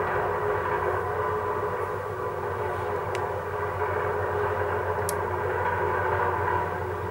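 Heavy dump truck's diesel engine running steadily at idle, a dense mechanical drone. Two short sharp knocks, about three and five seconds in, come from the workers' shovels and rake working the asphalt patch.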